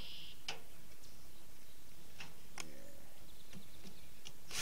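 A few sparse, light clicks and taps as a cordless drill and screws are handled on a wooden door frame, over a steady background hiss.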